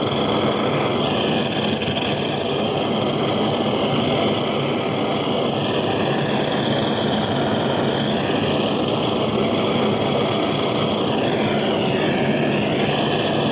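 Handheld gas burner torch running steadily with a constant flame roar, searing salted fish skin; the tone shifts slightly as the nozzle is moved.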